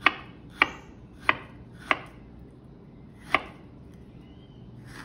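Chef's knife slicing a peeled pear thinly, the blade knocking sharply on a plastic cutting board at each stroke. Four knocks come at an even pace, about one every 0.6 s, then after a pause of over a second there is a fifth.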